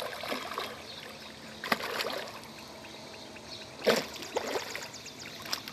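Hooked jundiá catfish splashing and thrashing at the water surface as it is reeled toward the bank. There are two sharp splashes, one at about a second and a half in and a louder one near four seconds.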